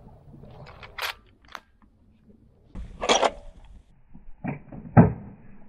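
Metal clicks and knocks from a scoped bolt-action rifle on a tripod being handled: a short sliding rattle about three seconds in, then two sharp knocks half a second apart, the second the loudest.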